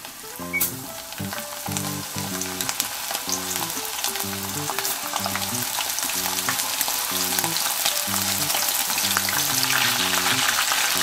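Thin slices of cornstarch-dusted beef tongue sizzling and crackling in hot oil in a small pot, getting gradually louder as more slices go in. A soft background tune runs underneath.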